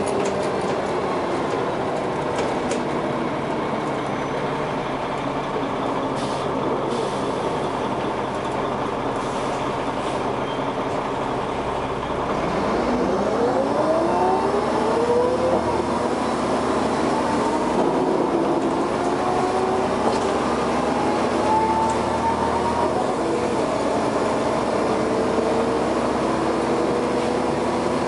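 Dennis Arrow bus with a ZF automatic gearbox, heard on board: about twelve seconds of steady running, then it pulls away louder, with a transmission whine climbing in pitch and shifting up through the gears a couple of times.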